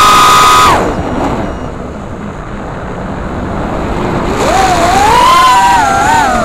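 FPV quadcopter's brushless motors heard from the onboard camera: a high, steady whine at full throttle cuts off suddenly about a second in, leaving a rush of air. About four seconds in the motors spool back up with a wavering, rising whine. The cut-off fits a throttle chop through a flip or dive.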